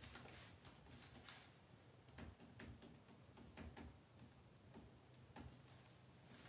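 Faint, irregular clicks of typing on a computer keyboard, about two or three keystrokes a second, as a social-media post is edited.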